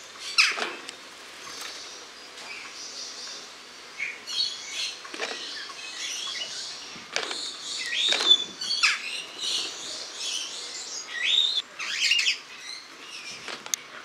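Superb starlings (Spreo starlings) calling: a varied chatter of short, harsh notes and chirps mixed with whistles, some rising and falling in pitch in the second half.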